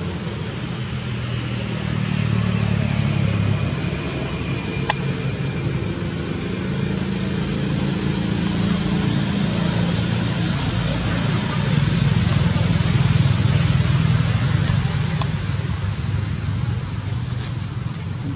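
Low engine hum of road traffic, swelling twice, with a single sharp click about five seconds in.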